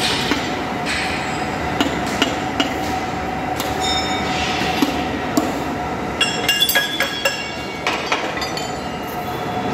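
Steel railway bogie parts being struck and knocked together: sharp metal-on-metal clanks and clinks with a high ringing, coming fastest in a quick run about two thirds of the way in. Beneath them runs a steady workshop machinery hum.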